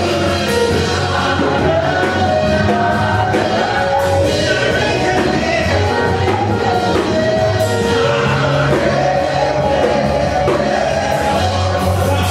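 A man singing a gospel worship song into a handheld microphone, holding long notes over sustained chords and bass from a Roland Juno keyboard.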